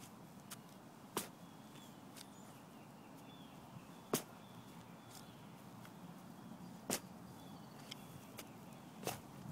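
Four sharp knocks about three seconds apart, the loudest about four seconds in, with fainter ticks between them, over a faint steady background with a few high chirps.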